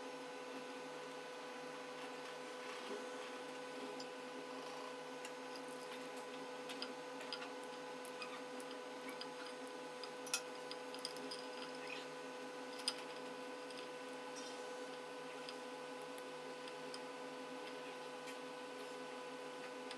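Light clicks and handling noises from plastic ink dampers and tubes being worked on inside a DTF printer, with two sharper clicks a little past halfway, over a steady electrical hum.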